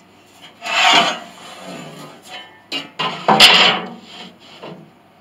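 A steel reinforcement plate scraping and rubbing against the wood and cast iron of a grand piano's pinblock area as it is set and shifted into place for fitting. There are two longer scrapes about two seconds apart, a sharp knock during the second, and lighter rubs between.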